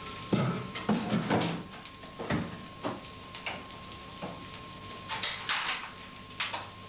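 Kitchen handling noises: a run of knocks and clatters as things are moved about and a fridge or cupboard door is worked, then a couple of short hissing rushes about five seconds in. A faint steady high tone sits underneath.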